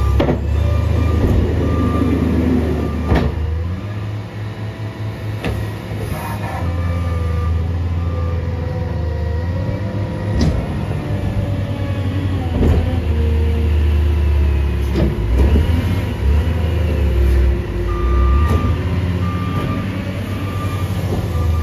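Case 621G wheel loader's diesel engine running and revving as it works, with several sharp clanks from the bucket. A backup alarm beeps steadily near the start and again near the end.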